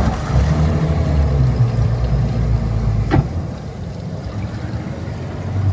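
Twin Yamaha outboard engines running at low revs, working to hold the boat in position on an automatic station-keeping mode, with a single sharp clunk about three seconds in.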